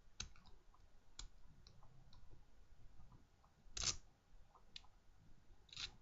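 Lock pick working inside a Silverline lock: faint, scattered small metal clicks, with a louder short scrape about four seconds in and another near the end.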